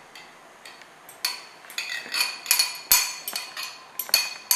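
A utensil clinking against a mixing bowl as egg yolks and sugar are beaten together: an uneven run of ringing clinks, about three a second, starting about a second in.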